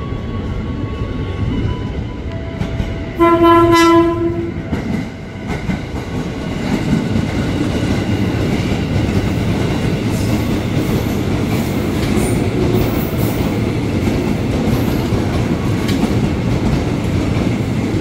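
JR 205-series rheostatic-control electric commuter train sounds its horn once, a single steady tone for about a second, a few seconds in. It then runs alongside the platform with a steady rolling rumble of wheels and motors.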